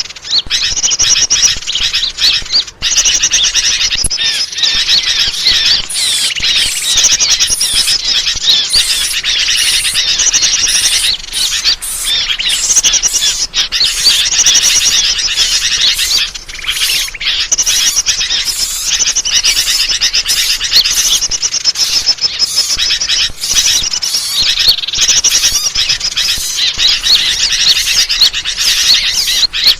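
Dense, continuous chirping and squeaking of many small songbirds calling over one another, a loud bird-lure recording (suara pikat) meant to draw birds in.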